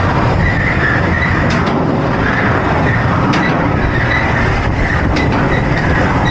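S&S 4D Free Spin roller coaster car running along its steel track, heard from on board: a loud, steady rumble with a wavering high squeal and a few sharp clicks.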